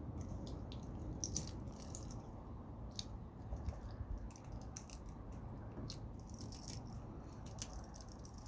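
Wire-cutter pliers cutting and handling copper wire: scattered small metal clicks and clinks over a steady low hum.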